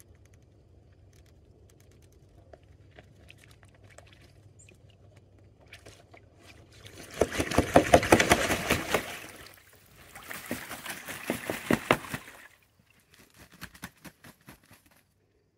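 Toulouse geese bathing in a plastic kiddie pool: two bouts of heavy splashing, from about seven seconds in and again from about ten, each lasting a couple of seconds. Scattered lighter splashes follow near the end, and before the bouts there are only faint drips and ticks.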